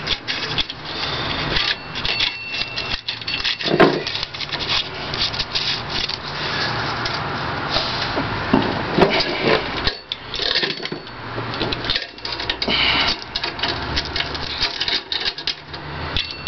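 Metal roller chain rattling and scraping as it is handled and wrapped around a clutch sprocket, with continuous rubbing and clicking and a few louder knocks.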